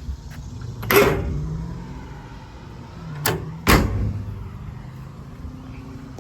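Doors on a service truck being shut: one loud bang about a second in, then two more bangs close together a few seconds later.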